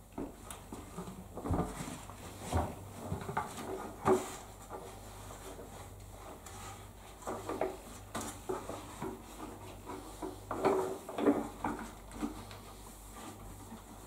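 Handling of the plastic parts of Numatic Henry and Hetty vacuum cleaners: irregular knocks, clunks and rubbing as the heads and tubs are lifted, turned over and set down, with two busier stretches, one a couple of seconds in and one near the end.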